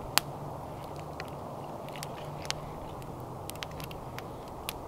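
Wood campfire crackling, with scattered sharp pops from the burning logs over a steady low rush. The loudest pop comes just after the start.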